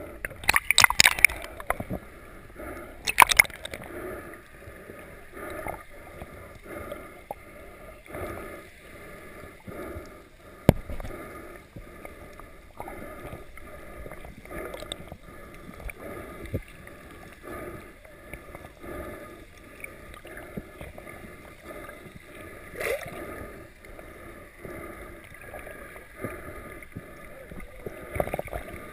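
Muffled underwater water noise picked up by a camera held below the surface: gurgling and sloshing, with a few louder splashes in the first few seconds.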